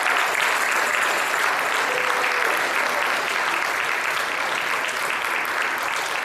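Theater audience applauding and cheering, steady clapping with a few scattered shouts mixed in.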